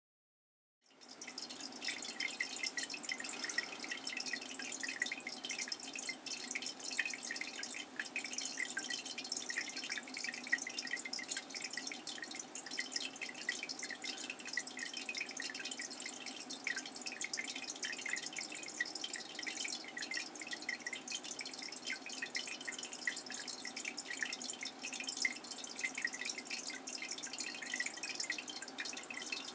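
Water dripping and trickling in a dense, steady patter of small drips, with a faint steady hum underneath; it starts abruptly about a second in.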